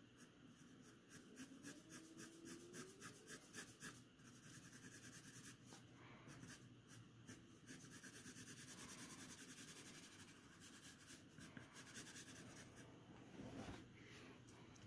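Faint pencil graphite scratching on drawing paper in short, quick shading strokes, about three a second, then a longer smoother stretch of shading midway: feathered strokes, each lifted off at the end to fade the tone into the light area.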